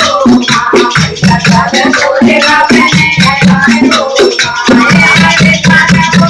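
Music: a fast, steady percussion beat with a melody line over it.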